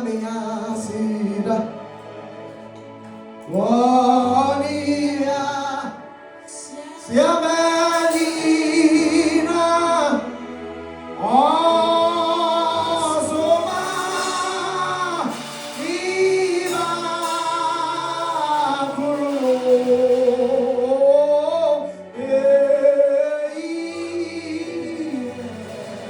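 Gospel singing: voices singing a slow song in held phrases a few seconds long, over a steady instrumental accompaniment.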